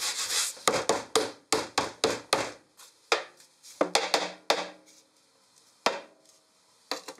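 Wasanbon sugar dough rubbed across a wooden higashi mold, then a series of sharp wooden knocks as the mold is struck to release the pressed sweets. The knocks come in quick clusters, followed by a few single knocks near the end.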